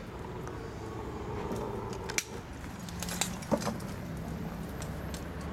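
Handling noise: a few sharp clicks and light metallic rattles, the loudest about two seconds in and again about three and a half seconds in, over a steady low hum.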